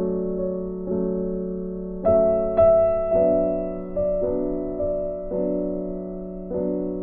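Slow solo piano music: chords struck about once a second, each one ringing and fading away before the next.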